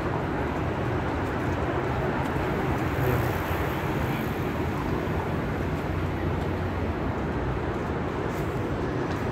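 Steady city street traffic noise with a low hum underneath, unbroken throughout.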